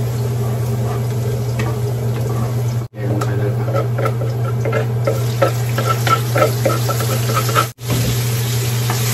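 Garlic sizzling in oil in a nonstick wok while a spatula stirs it, over a steady low hum. From about three seconds in, a run of short scrapes and knocks as curry paste is scraped from a plastic tub into the pan, and near the end the paste frying adds a stronger sizzle.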